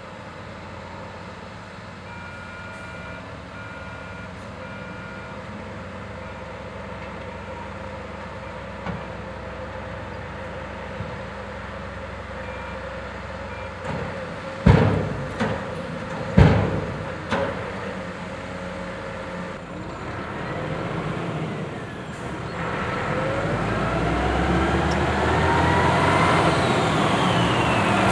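Volvo FH tipper truck's diesel engine running steadily while it unloads asphalt into a paver, with three short beeps early and two loud bangs about halfway through. Near the end the engine grows louder and rises in pitch as it revs up.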